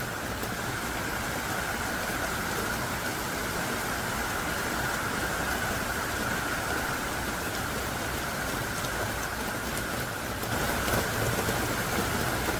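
Heavy downpour: a steady hiss of thick, hard-falling rain that gets a little louder about ten seconds in.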